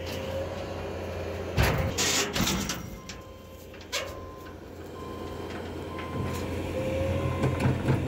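Skid steer engine running steadily while its bucket handles a large white pine log on a steel dump trailer, with a burst of loud knocks and clanks about a second and a half in and another knock at about four seconds. The engine grows louder near the end as it works harder.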